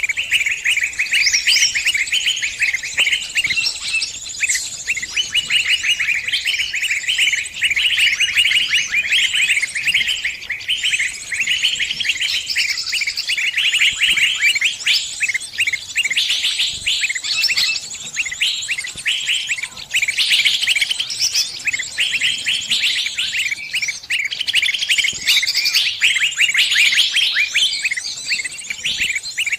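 Sunbirds chirping and trilling without a break: a dense run of rapid, high, thin notes, several overlapping.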